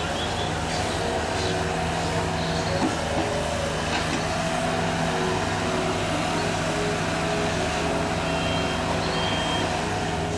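A steady machine drone at an even pitch, like an engine running continuously. A few short high chirps sound over it, and two brief flat high tones come near the end.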